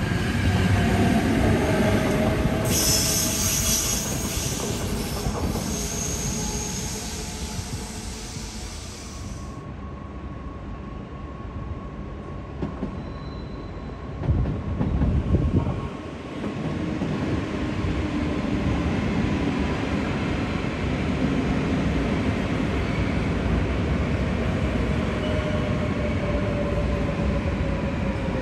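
NS Intercity coaches rolling through a station, with a high metallic wheel squeal lasting about six seconds from a few seconds in. Then a double-deck NS train runs in the station: a steady rumble, briefly louder about halfway, with a slowly falling tone near the end.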